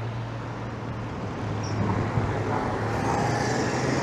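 Citroën 2CV's air-cooled flat-twin engine running as the car approaches and drives past, growing steadily louder, with tyre noise joining near the end.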